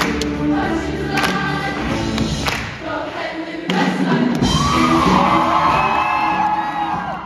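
Show choir singing with a live band, with drum hits under the voices. About halfway through the choir holds a loud chord, which cuts off near the end.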